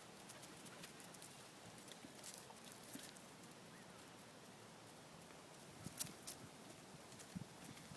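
Near silence with scattered faint taps and clicks, a few sharper ones about six and seven seconds in.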